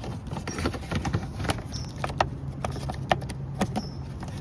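Irregular sharp plastic clicks and taps, about a dozen, as hands work the tabs and slide the hidden fuse-and-relay block in the wheel well, over a faint low steady hum.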